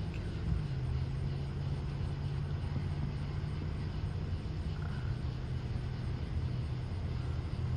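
Steady low hum of a car's engine running, heard from inside the cabin.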